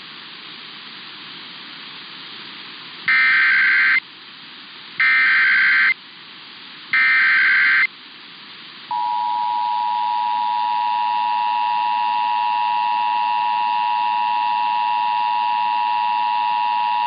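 Emergency Alert System activation tones announcing a severe thunderstorm warning: three one-second bursts of SAME header data about a second apart, then the steady two-tone EAS attention signal starting about nine seconds in. Behind them is a steady broadcast hiss.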